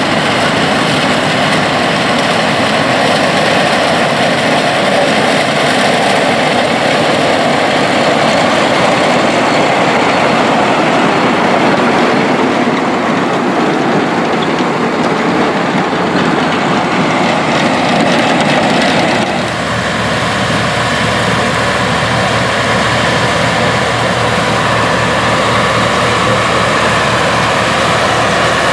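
Farm tractor engines running under load as tractors with mounted corn pickers harvest standing corn. About two-thirds through, the sound changes abruptly to a steadier, lower engine note from an Oliver 1650 tractor pulling a corn picker and wagon.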